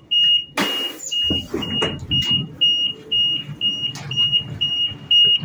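Door warning beeper on a Whoosh high-speed train sounding while the passenger door opens: a high, even beep repeating about twice a second. A short hiss comes a little over half a second in.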